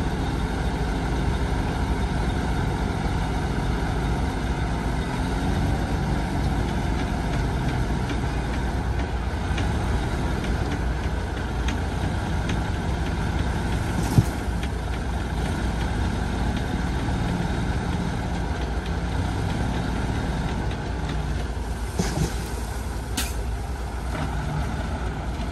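Heavy diesel earthmoving machinery running steadily: bulldozer and dump truck engines. A single sharp knock comes about halfway through, and a couple of brief sharp sounds come near the end.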